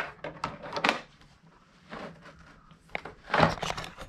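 Hard plastic rear fender and tail section of a Honda CRF450RL being handled and pushed into place: a series of short clacks and knocks, with a longer, louder scrape a little over three seconds in.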